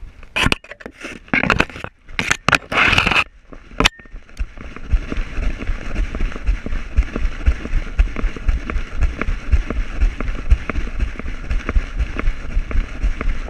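Brush and branches scraping and rustling against a camera worn on a husky shepherd mix as it pushes through desert scrub, ending in a sharp click about four seconds in. After that comes a steady rushing noise with regular low thumps from the dog's footfalls jolting the camera as it moves over open ground.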